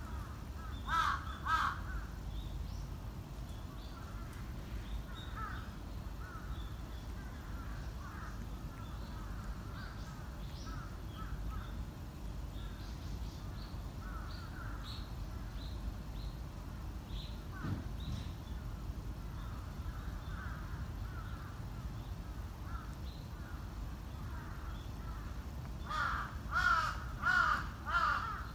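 Crows cawing: two loud caws about a second in and a run of four near the end, with fainter calls scattered between over a steady low rumble.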